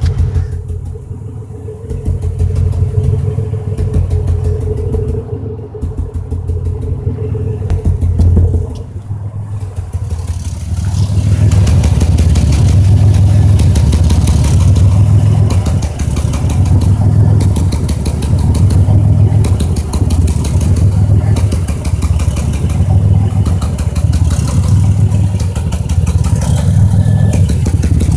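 A 2005 Chevy Impala's 3800 V6 running with a recurring stutter: its low rumble swells in a regular pulse about every second or two. It grows louder about ten seconds in. The car has been logging a cylinder 5 misfire (P0305) that a new spark plug, plug wire and injector on that cylinder have not cured.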